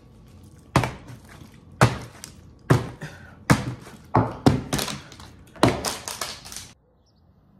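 Plastic water bottle being flipped and landing on a kitchen countertop: a run of sharp thunks, roughly one a second, that stops abruptly near the end.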